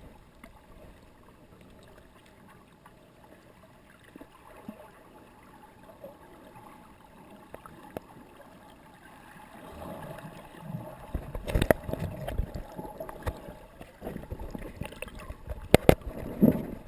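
Muffled water sound recorded underwater in shallow sea: a quiet, even hiss at first, then from about ten seconds in louder sloshing and gurgling, with several sharp clicks or knocks.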